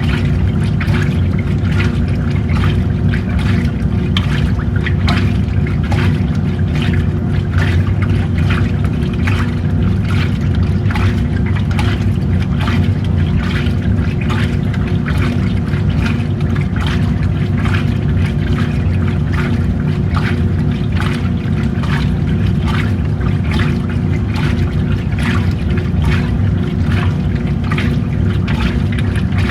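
Old-style washing machine running: a steady motor hum with water sloshing repeatedly as it agitates the clothes.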